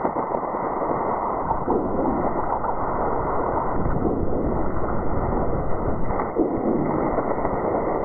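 Seismometer recording of ground motion sped up into the audible range: a steady rushing, gurgling noise with no distinct onset, the background ground noise of one station's trace.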